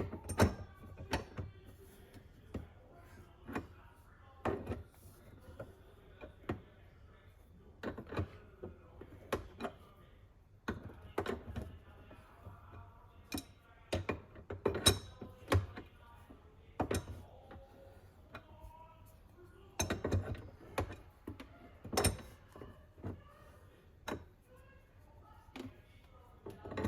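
Irregular metallic clicks and knocks of a wrench working a fitting on an espresso machine's steam wand, several separate knocks with short gaps between them.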